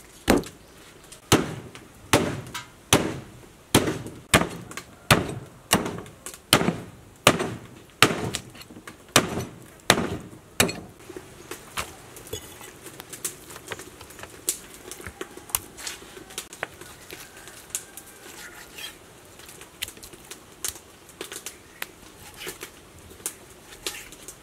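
A large kitchen knife chopping oxtail through the bone on a wooden chopping board: a steady run of heavy chops, about one every half second to a second, for roughly the first ten seconds. After that come lighter knife taps on the board as meat is cut.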